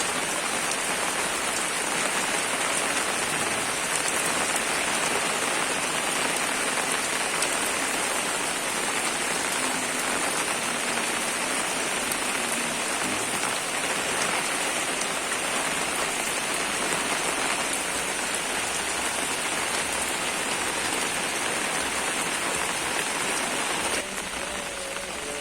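Steady, dense rain pattering down, easing slightly near the end.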